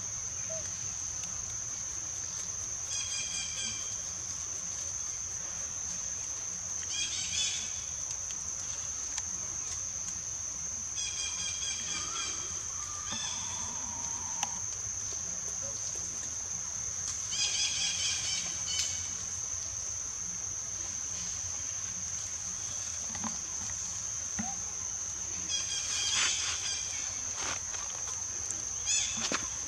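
Insects droning steadily at one high pitch, with short high-pitched calls breaking in about half a dozen times.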